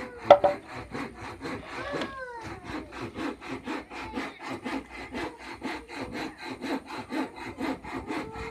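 Wood being sawn by hand in rapid, even strokes, about four a second. A cat meows about two seconds in and again near the end, and there is one sharp knock just after the start.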